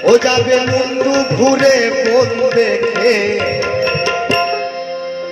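Instrumental interlude of live Baul folk music: a bending flute melody over steady hand-drum strokes, with a plucked lute (dotara) and harmonium underneath, settling onto a held note near the end.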